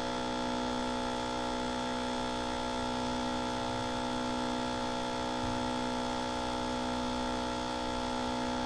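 Steady electrical hum made up of many even tones, unchanging throughout.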